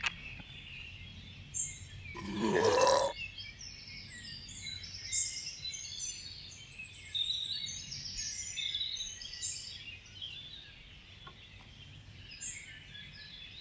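Background of many small birds chirping, with a short burp about two seconds in that rises in pitch and is the loudest sound.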